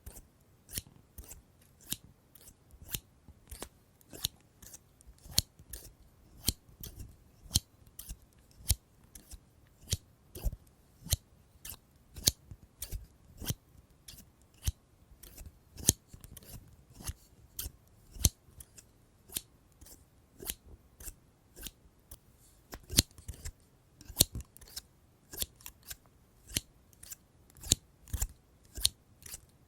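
Scissors snipping, a steady run of crisp close-up cuts about two to three a second.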